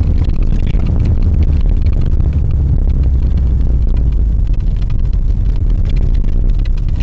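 Alfa Romeo car's engine running steadily while driving, heard from inside the cabin as a loud low drone, with tyre and road noise from the snow-covered track.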